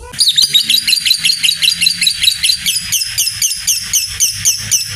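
Lovebird in a long ngekek: an unbroken, rapid chatter of sharp, high chirps, about five a second, the long chattering call of a fighting lovebird.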